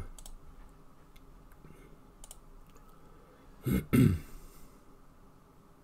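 A few faint mouse clicks, then a short, loud two-part throat clear about four seconds in.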